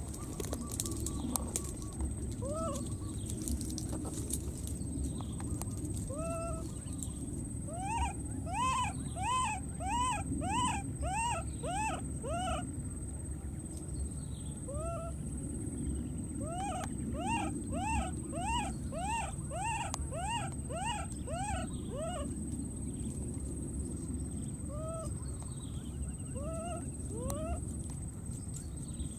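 Baby macaque calling: short, high-pitched, arching cries, repeated in quick runs of about two a second a third of the way in and again past the middle, with single cries in between. A steady low background noise runs underneath.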